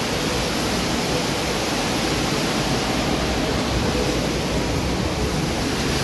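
Steady rush of water from the Rain Oculus, an indoor waterfall falling from a ceiling bowl into a pool.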